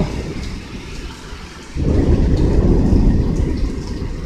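Heavy rain falling steadily. About two seconds in, a low rumble of thunder sets in suddenly and keeps rolling.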